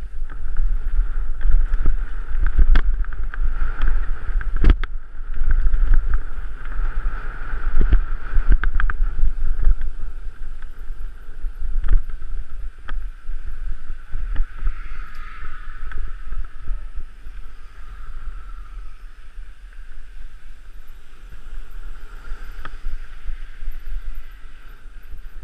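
Wind buffeting the microphone and tyre noise from a mountain bike descending a rough dirt trail, with frequent sharp knocks as the bike rattles over rocks and bumps. It grows quieter and smoother from about halfway through.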